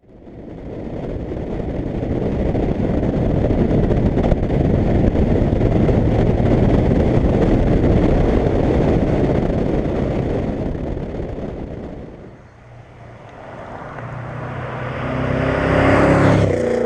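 A car driving past: a long swell of engine and road noise that fades about twelve seconds in, then a second rise with a clear engine note that peaks near the end.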